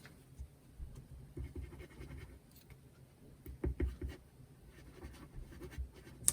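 Faint scratching and small taps of paper card being handled as glue is applied to it, with a short cluster of ticks a little before the four-second mark.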